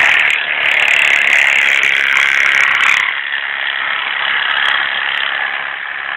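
A steady mechanical noise, continuous and fairly high in pitch, easing slightly after about three seconds.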